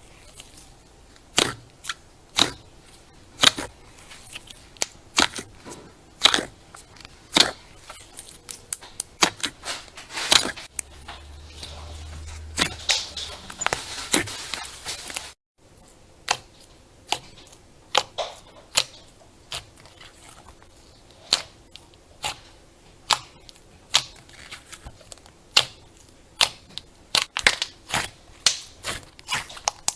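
Crunchy slime being pressed and worked, giving sharp crackling pops about once a second. Near the middle there is a denser stretch of crackle that cuts off abruptly.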